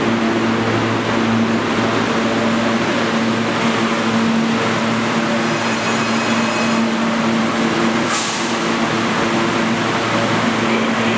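R160 subway train standing at a station platform, its equipment giving a steady hum with several held tones. About eight seconds in there is a short hiss of air.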